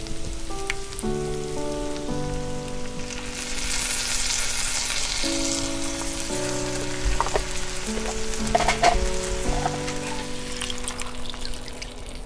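Food sizzling in a frying pan: a steady hiss that swells about three seconds in, with a few light knocks near the middle. Background music of slow, sustained chords plays under it.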